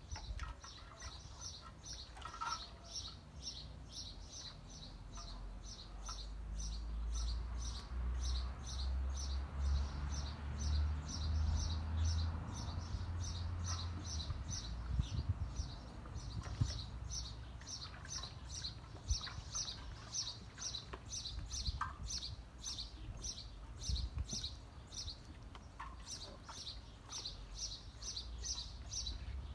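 A small bird chirping over and over in a steady rhythm, about two to three high chirps a second, over a low rumble that swells for several seconds in the first half and a few soft knocks.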